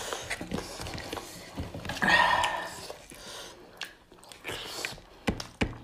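Close-miked chewing and biting of meat eaten by hand, with wet mouth clicks. A brief burst of voice comes about two seconds in, and two sharp clicks come near the end.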